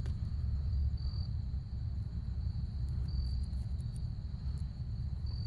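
Steady background ambience: a low rumble under a continuous high-pitched chirring that swells briefly a few times, with a few faint light clicks.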